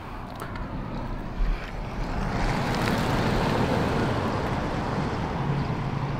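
A pickup truck driving past on the road: engine and tyre noise that swells about two seconds in and stays up. There is a short knock about a second and a half in.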